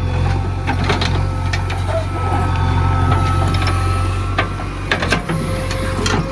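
Backhoe loader's diesel engine running steadily, with a thin steady whine over it and a series of sharp clanks and knocks, the loudest a quick pair about five seconds in.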